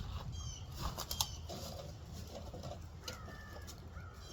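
Birds calling: a few short, high, downward chirps, a longer call about three seconds in and some lower calls between them, over a steady low rumble.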